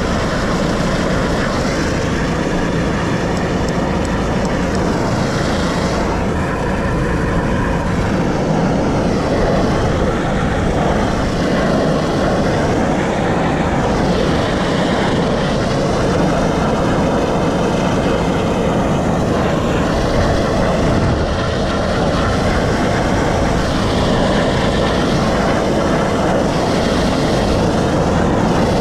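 Rescue helicopter hovering, heard from on board: steady, loud rotor and turbine noise with a slowly wavering, sweeping hiss in the upper range.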